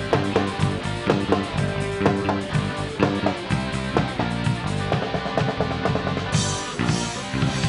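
Live rock band playing: electric guitars, bass and keyboard over a drum kit keeping a steady beat, with a cymbal crash about six seconds in.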